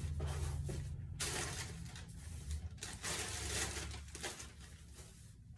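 Plastic wrapping of sanitary pad packages rustling and crinkling in irregular stretches as the pads are handled and pushed into a container, getting quieter toward the end.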